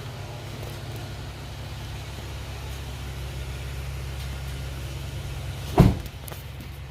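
Vehicle engine idling with a steady low rumble. A single sharp thump comes about six seconds in.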